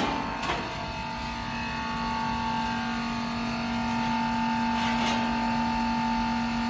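Steady electric hum of sheet-metal shop machinery, with a light knock about half a second in and a short rasp near five seconds.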